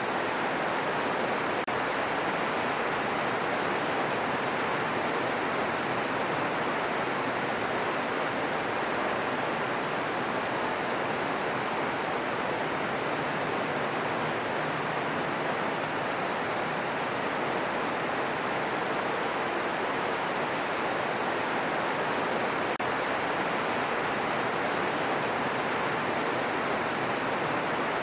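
Steady green noise: an unchanging hiss strongest in the middle range, thinner in the deep lows and high treble, with no thunder or single drops.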